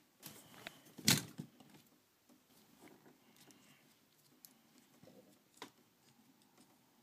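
Plastic parts of a Takara Tomy MP-11 Starscream Transformers figure clicking and rattling softly as it is handled and posed, with the loudest click about a second in and another sharp click near the end.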